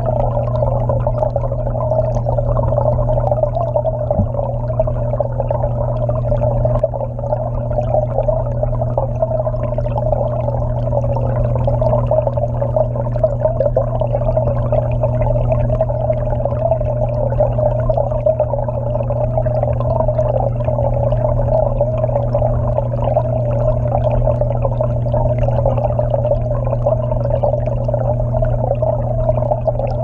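Aquarium pump and waterfall heard through an underwater camera: a steady low hum under a wavering, mid-pitched rush of moving water.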